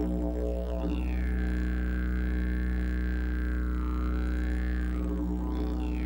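Didgeridoo playing a steady low drone in an ambient music track. A bright overtone above the drone sweeps down about a second in, dips near four seconds and climbs again near the end.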